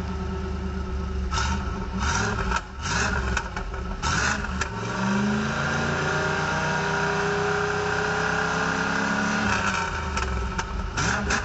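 1988 Camaro IROC-Z's 5.7-litre L98 TPI V8 with the catalytic converter removed, idling with a few short throttle blips. About five seconds in it is revved and held with the pitch rising for about four seconds, then drops back to idle near ten seconds.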